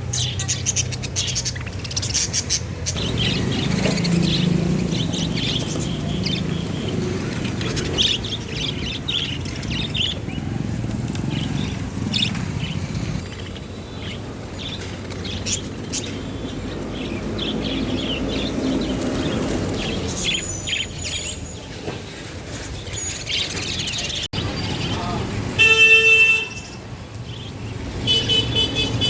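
A flock of caged budgerigars chirping continuously, many short high calls overlapping, over a low murmur of background noise. Near the end, a loud pitched tone lasts about a second.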